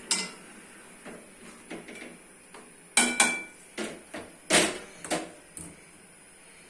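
Kitchenware being handled: a string of sharp knocks and clinks of pots, utensils or dishes, one with a brief metallic ring about three seconds in, the loudest knock a little later.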